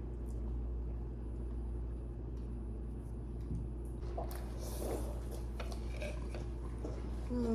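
Quiet eating: faint chewing and small clicks of mouth and dishes over a steady low hum.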